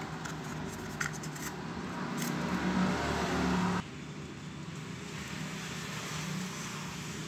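A steady low mechanical hum, like a motor running, which drops abruptly to a quieter level a little under four seconds in.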